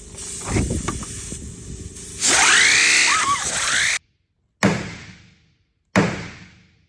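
Two hammer blows on a John Deere tractor's steel wheel, about a second and a quarter apart, each ringing and dying away. Before them, a loud squealing sound with a wavering pitch cuts off abruptly.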